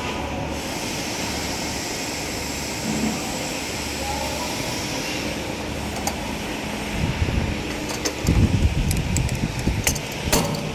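Steady hum of factory machinery. In the last few seconds it is joined by light metallic clicks and knocks from hand tools worked on a can seamer's seaming head.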